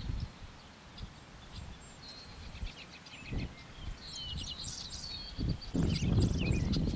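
Songbirds chirping and trilling, several short calls overlapping, busiest in the second half. A low rumble comes up about six seconds in.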